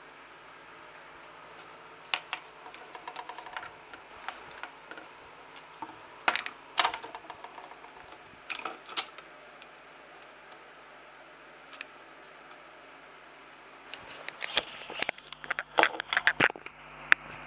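Scattered light clicks and taps of wooden chopsticks being handled and set against each other on a tabletop, with a quiet stretch in the middle and a denser run of clicks and knocks near the end.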